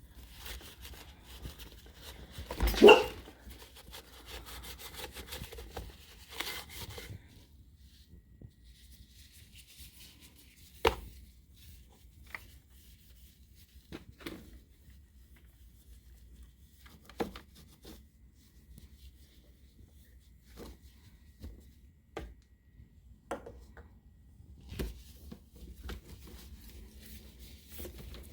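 Handling of plastic coffee-maker parts: scattered knocks, clicks and rustling. One louder, brief sound about three seconds in, then isolated sharp knocks every few seconds.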